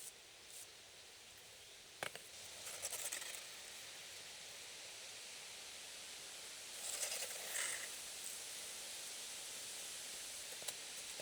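Quiet outdoor ambience with a steady hiss, a single sharp knock about two seconds in, and two short spells of rustling, one just after the knock and one about seven seconds in.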